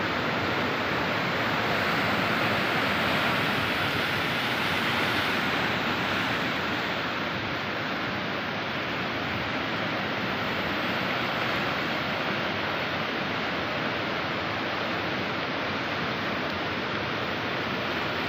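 Ocean surf breaking and washing up the beach, heard as a steady, unbroken rush of noise.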